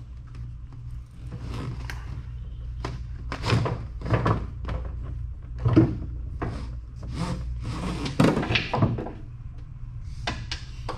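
Heavy battery cables being pushed and pulled through a corrugated plastic rigging tube: irregular scraping and rustling with several knocks, over a steady low hum.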